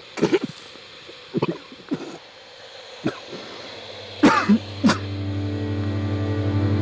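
A person coughing several times in short, separate bursts. About four seconds in, a low sustained musical drone comes in under the last coughs.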